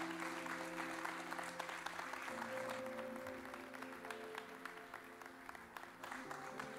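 Audience applauding over an electric keyboard holding sustained chords that change twice. The clapping is dense at first and thins to scattered claps after a couple of seconds.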